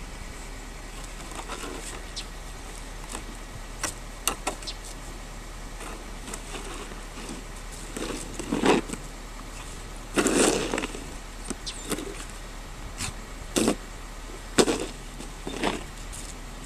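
A Belgian Malinois biting at a plastic snow shovel blade while it is pushed across snow, making an irregular series of short scrapes and knocks. The longest and loudest scrapes come just past the middle.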